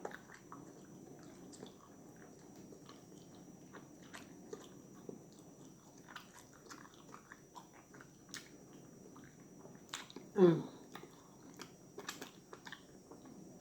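Close-miked mouth sounds of someone eating barbecued turkey leg: wet chewing and lip smacking with many small clicks. About ten seconds in comes one short, loud vocal sound that falls in pitch.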